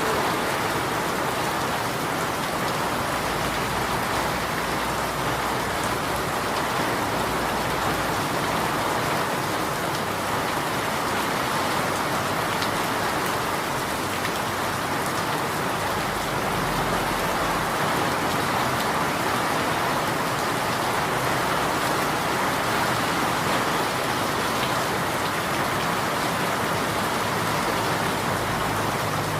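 Steady rain falling and pattering on a surface.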